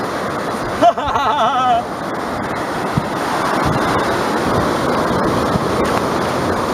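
Ocean surf breaking and washing up on a sandy beach, a steady rushing noise, with wind buffeting the microphone. About a second in, a person's voice rises briefly in a short wavering sound for under a second.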